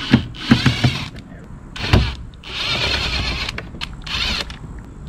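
Cordless driver with a T15 Torx bit running in three short bursts, whining as it backs small screws out of a plastic truck tow-mirror housing. There are a few clicks of the plastic being handled early on and a knock about 2 s in.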